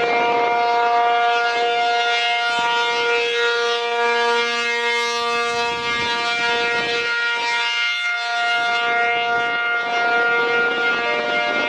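ASC T-135AC electromechanical outdoor warning siren sounding a steady chord of several held tones during a siren test. The upper tones thin out briefly in the middle, and a slightly lower tone creeps in near the end.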